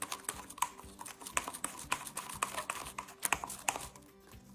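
A spatula stirring thick homemade white chalk paint (acrylic paint mixed with talcum powder) in a container, making quick irregular clicks and taps against its sides, several a second.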